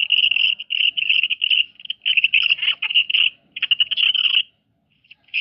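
A sneeze recording sped up many times over, turned into a fast, high-pitched chirping trill of rapid pulses. It breaks off for about a second near the end.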